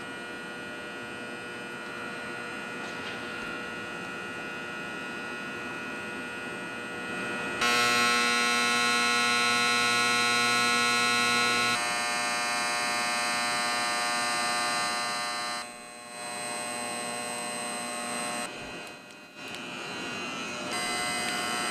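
A steady hum made of many held tones sounding together. It jumps to a louder, different set of tones about eight seconds in, then changes abruptly several more times, with brief drops near the end.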